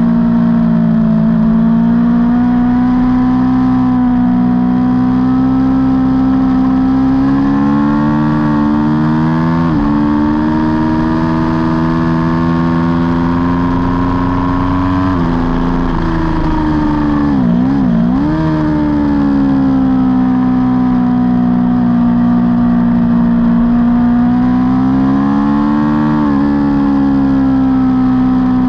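Aprilia Tuono V4 motorcycle engine at racing speed, heard on board: it revs up in long pulls, with sudden drops in pitch at upshifts about ten and fifteen seconds in. A quick dip and wobble in pitch comes about two-thirds in, then the engine pulls up again.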